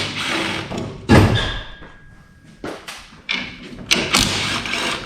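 Workshop clatter of metal parts and tools being handled. About a second in there is a heavy thud followed by a brief metallic ring, and more knocks and clanks come near the end.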